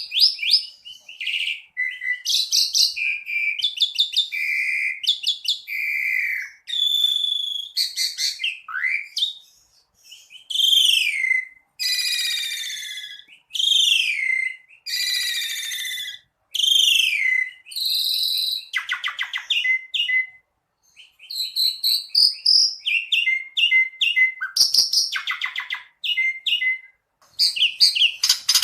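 Asian pied starling (jalak suren) singing a long, varied song in full voice: loud whistled notes that slide downward, mixed with fast chattering rattles and short trills, with only brief pauses.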